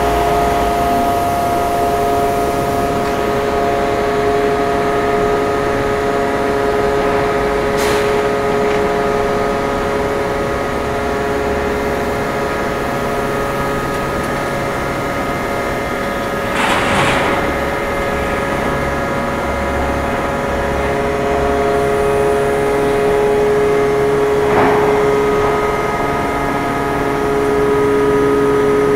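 3000-ton hydraulic hot forming press running under load, pressing a red-hot steel plate into a dished tank head, with a steady whine of several stacked tones. Three brief hisses break through, about 8, 17 and 25 seconds in.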